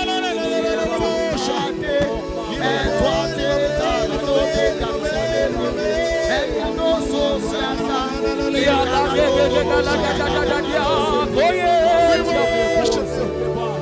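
Gospel worship music: voices singing over held bass notes and a fast, steady beat.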